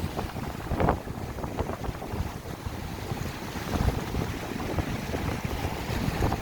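Strong wind buffeting the microphone in uneven gusts, over the wash of waves breaking on the shore.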